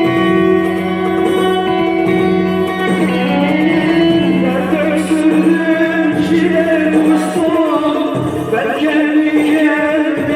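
Instrumental passage of a Turkish song: held notes for the first few seconds, then a melody line that bends up and down over a steady accompaniment.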